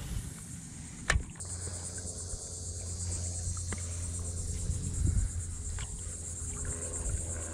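A steady, finely pulsing high trill of insects from the mangroves sets in after a click about a second in, over a low steady hum. A paddle stroke swishes in the water around the middle.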